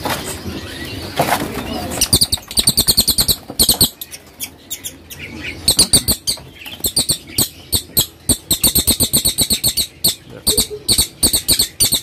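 Caged songbird fluttering its wings in rapid flurries that rattle against the cage, with runs of short high chirps. The flurries start about two seconds in, ease off for a moment around four seconds, and then start again.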